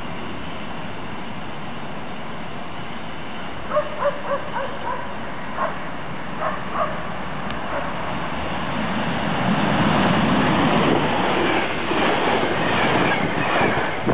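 ÖBB EuroCity train hauled by Taurus electric locomotives passing close at speed, its wheels running and clattering over the rails; the noise swells about eight seconds in and stays loud. Before that, a steady background rumble with a few short barks.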